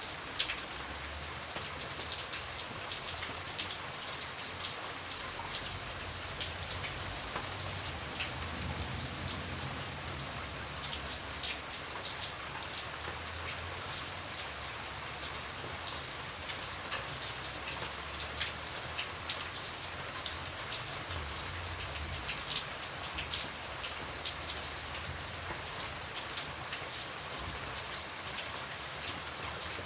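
Light rain falling steadily, an even hiss with many individual drops pattering and dripping close by, one louder drop just after the start.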